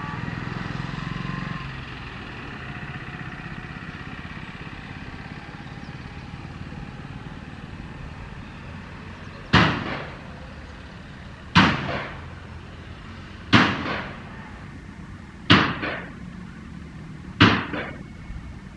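A diesel train's engine rumble, steady at first and dropping away about a second and a half in as the train climbs away uphill. In the second half come five sharp bangs, evenly spaced about two seconds apart.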